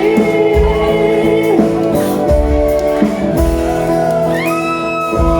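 Live band music in a short instrumental gap between sung lines: sustained chords over a steady beat, with a lead note sliding up and holding about four seconds in.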